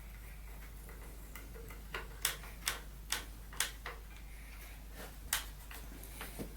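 A run of about seven sharp clicks and taps, roughly two a second, starting about two seconds in: door lock and handle hardware being handled and worked.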